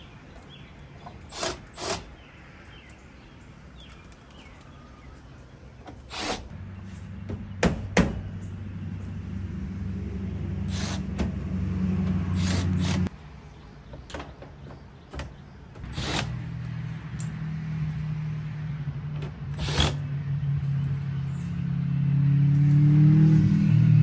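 A small motor hums in two long stretches, each starting and stopping abruptly; the second grows louder and rises in pitch near the end. Scattered sharp clicks and knocks fall between and over it.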